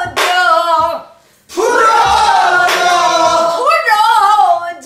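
A woman singing pansori in a full, wavering voice: a short phrase, a brief break, then a long held line that ends shortly before the close. A low thump sounds about two seconds in.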